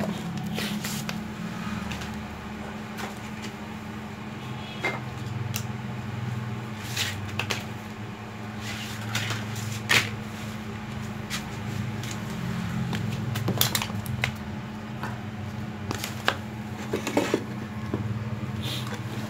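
Scattered clicks and knocks as two electric hammer drills and their cords are picked up, moved and set down on the floor, over a steady low hum; the drills are not running.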